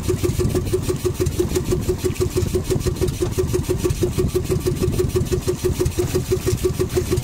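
Small fishing boat's engine running steadily with an even, rapid chugging beat.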